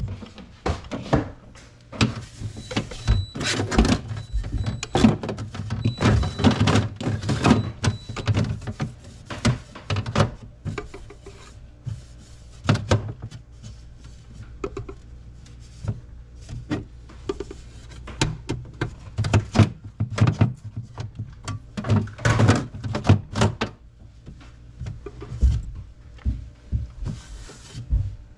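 Irregular knocks, taps and clatters of things being handled and set down, over a low steady hum.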